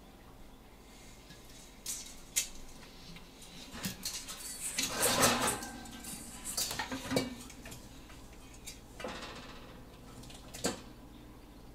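Metal pots, pans and wire shelving knocking and scraping as a monitor lizard climbs over them: a few separate clinks, a busier run of clattering and scraping from about four to seven seconds in, then two more knocks, the last sharp one near the end.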